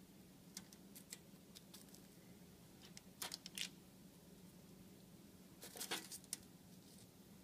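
Near silence with a faint steady hum, broken by two short clusters of small clicks and scrapes, about three seconds in and again about six seconds in, from a metal spoon putting creamy filling into puff pastry shells on a parchment-lined baking sheet.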